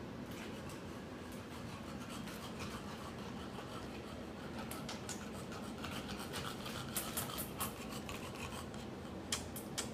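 English bulldog walking on a hardwood floor, its claws clicking in a few sharp ticks, bunched about two-thirds through and again near the end, over a steady rubbing noise.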